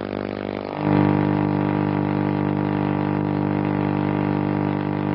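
A loud, steady hum made of many held tones, stepping up in loudness about a second in and then holding without change.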